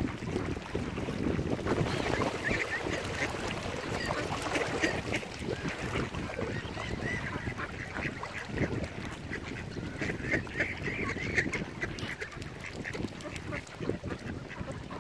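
Ducks calling in short runs of quick, repeated calls, over a steady low rumble.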